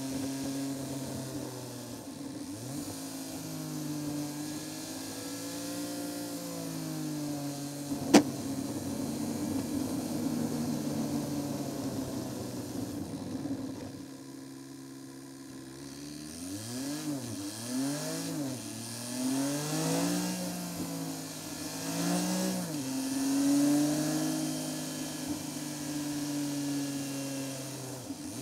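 Seat Ibiza car engine rising and falling in pitch as it pulls through the gears, with tyre and road noise. About 8 seconds in there is a single sharp knock. Around the middle the engine drops back to a low, quieter tone and then climbs in several quick rising sweeps as the car pulls away again.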